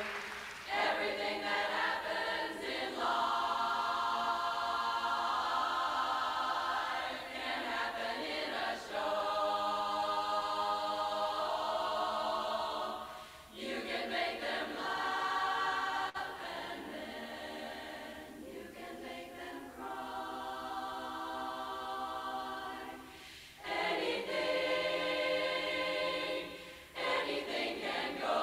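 Large women's chorus singing a cappella, holding sustained chords, with short breaks between phrases about 13 and 23 seconds in.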